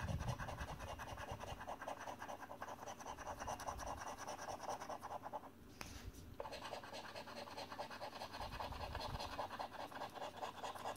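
A £2 coin scratching the coating off a scratchcard in fast, repeated strokes, with a short pause a little past halfway.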